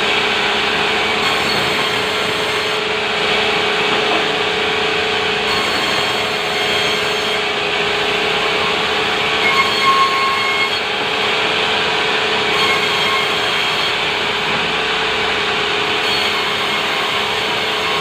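Sawmill saw cutting timber: a continuous, steady machine noise with a constant hum, and a brief higher squeal about ten seconds in.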